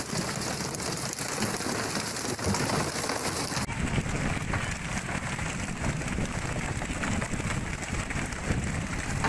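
Steady rushing noise of wind and sea water aboard a fishing boat at sea, with no clear single event. About four seconds in it changes abruptly to a deeper rumble.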